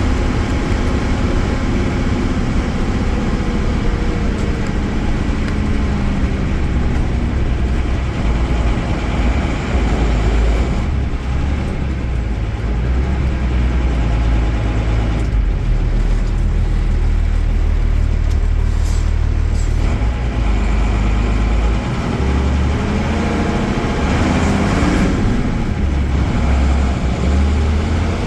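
Mercedes-Benz OM-366A six-cylinder diesel engine of an OF-1318 bus running on the road. Its pitch falls over the first several seconds, settles into a heavy low rumble through the middle, and rises again near the end as it picks up revs.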